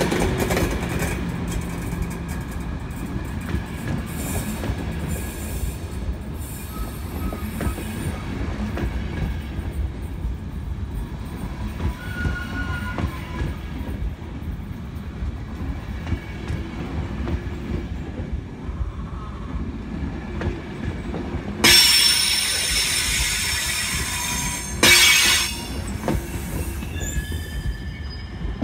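ÖBB Intercity passenger coaches rolling slowly past, with wheels rumbling and clicking over the rail joints and faint wheel squeals. Two loud, high screeches come about 22 and 25 seconds in, the first lasting about three seconds and the second under one.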